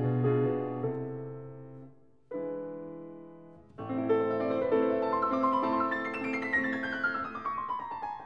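Background piano music: a soft phrase whose notes die away, fresh chords struck about two and about four seconds in, then a descending run of notes near the end.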